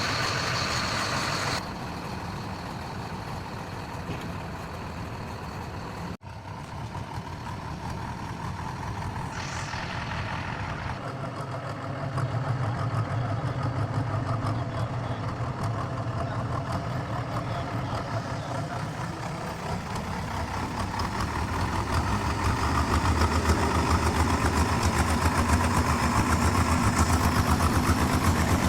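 Heavy diesel engines of a backhoe loader and a stuck truck running on a recovery job, growing louder and heavier under load about halfway through and again near the end. There is a momentary break in the sound about six seconds in.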